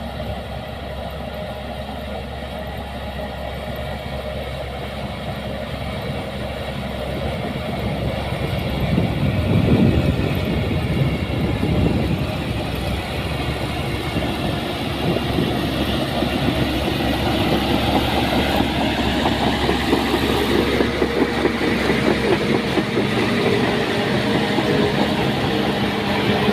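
Crawler bulldozer's diesel engine running, with its steel tracks clanking and rattling. It grows louder about eight seconds in and stays louder.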